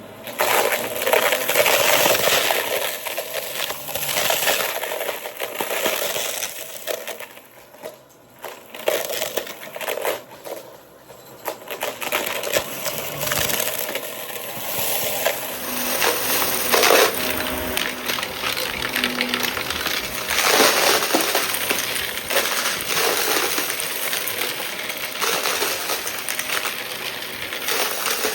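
Shark vacuum cleaner running and sucking up a small mess of debris, with rapid clicks and crackles as hard bits rattle through the head and hose. A steady high whine joins about halfway through.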